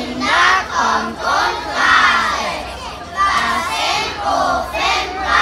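A group of young children's voices together in unison, in loud phrases with short dips between them.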